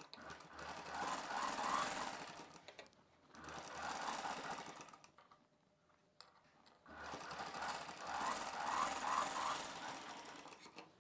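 Sewing machine stitching a seam around a dress neckline, run in three short stretches with brief stops between them.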